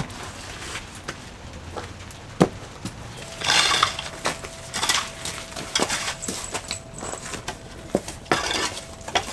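Stones knocking and clinking against each other, with a sharp knock about two and a half seconds in and a short gritty scrape a second later.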